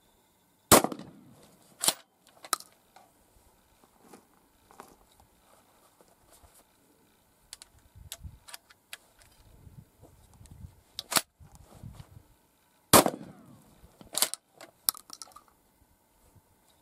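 Two blasts from a 12-gauge reverse-cycle pump-action shotgun, about a second in and again near the end, each ringing out briefly. After each shot come sharp clacks as the action is worked, and in between there are small clicks and rattles as a shell is loaded by hand.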